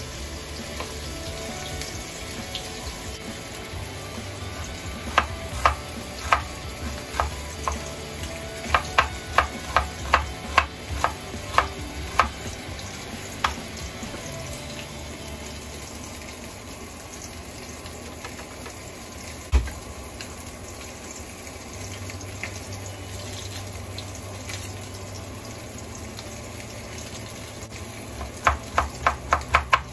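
Kitchen knife chopping vegetables on a wooden cutting board: a run of sharp taps about two a second in the first half, a single knock later, then a fast run of mincing taps near the end. A steady sizzle of frying runs underneath.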